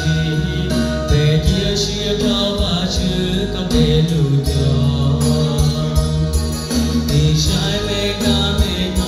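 A man singing a slow song into a microphone over a recorded backing track with a steady bass line and beat, played through a PA system.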